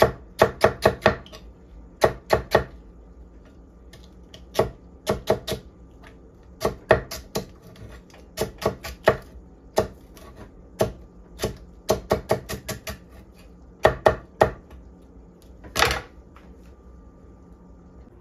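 Knife chopping celery on a wooden butcher-block board: irregular runs of sharp knocks, a few strokes at a time with short pauses between, ending with one longer stroke near the end, after which the chopping stops.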